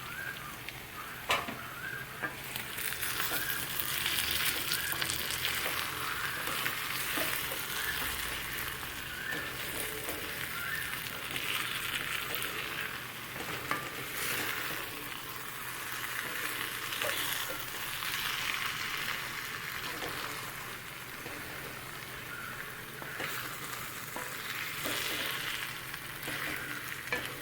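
Chicken pieces in thick masala sizzling in a pan, stirred and turned now and then with a spoon; the sizzle swells and eases every few seconds, with a few sharp clicks of the spoon against the pan.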